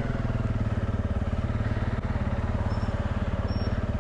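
Honda CRF300 Rally's single-cylinder engine running steadily at low revs as the motorcycle rides slowly, with a fast, even beat of firing pulses.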